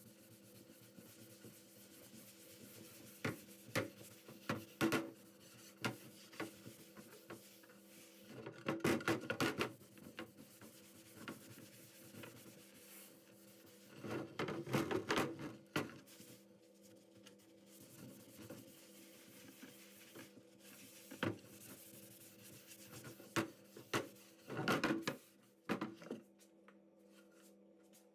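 Wooden cutting board being rubbed and handled, in short bursts of rubbing and light knocks a few seconds apart, over a faint steady hum.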